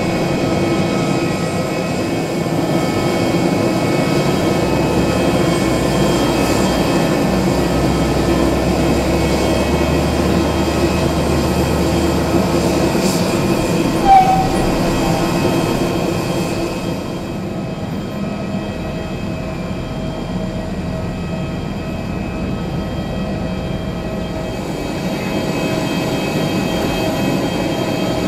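Airbus A320neo jet engines running, a steady drone with whining tones that eases and grows duller about two-thirds of the way in. A short sharp chirp stands out about halfway.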